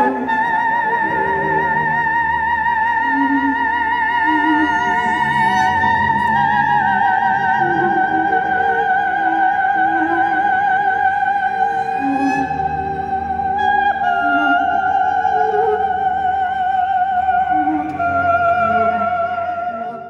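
Film score music: a slow high melody in long held notes with a wide vibrato, stepping gradually lower, over soft low accompanying notes.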